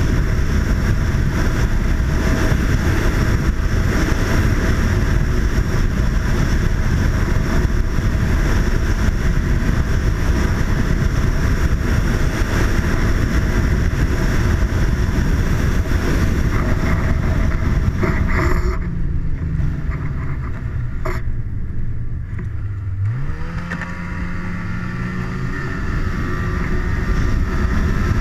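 Snowmobile engine running at speed along a trail. About two-thirds of the way in the throttle is let off and the engine drops toward idle. A few seconds later it revs back up with a rising whine and holds steady again.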